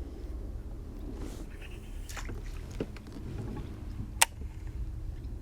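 Small knocks and clicks of fishing gear being handled on a kayak, over a low steady rumble; one sharp click stands out about four seconds in.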